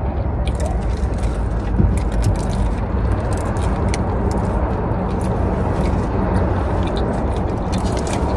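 A person chewing a bacon-and-egg breakfast bagel, heard as scattered small clicks and crackles, over a steady low rumble.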